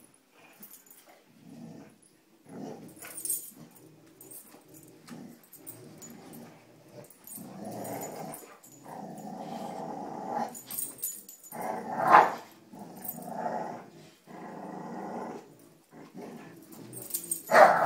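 Dogs growling in play as they tug on a rope toy: a run of rough growls that comes in and builds, loudest about twelve seconds in.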